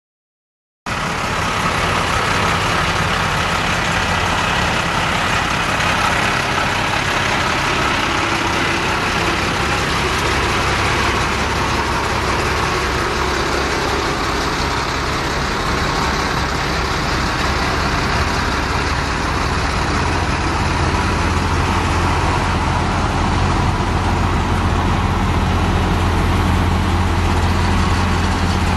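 The Navistar DT466 7.6-litre diesel of a 1997 International 4900 dump truck idling steadily. The sound cuts in abruptly just under a second in.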